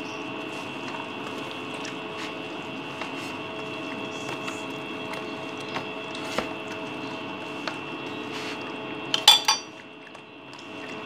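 Gloved hands squishing and turning chicken pieces through a wet marinade paste in a plastic tub, with small scattered clicks over a steady background hum. About nine seconds in there is a brief loud clatter, like the spoon knocking against the tub.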